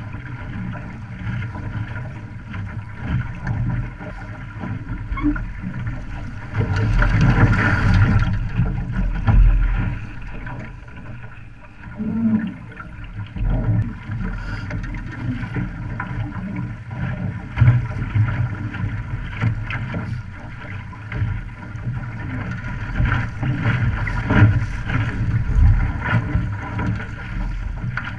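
Wind buffeting the microphone over the rush and splash of water along a sailing OK Dinghy's hull as it sails at speed throwing spray, with a louder surge about seven to ten seconds in.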